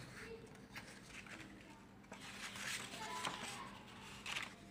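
Sheets of a spiral-bound paper pad being handled and turned, a faint rustling of paper that comes in short swells.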